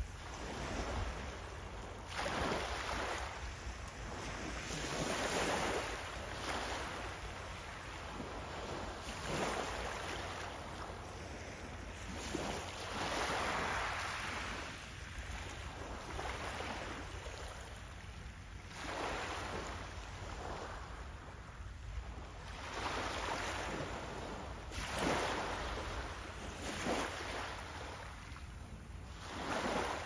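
Small sea waves washing up onto a pebble beach and drawing back, a hissing surge every two to four seconds.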